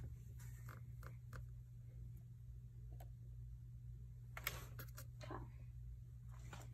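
Faint handling noise: scattered light clicks and rustles as squishy fidget toys are moved and set down on carpet, over a steady low hum. One sharper click comes about four and a half seconds in.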